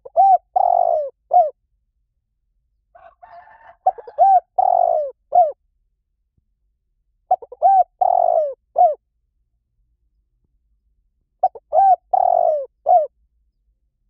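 Spotted dove cooing: four call phrases about every four seconds, each a few short notes, then a longer drawn-out coo and a short closing note.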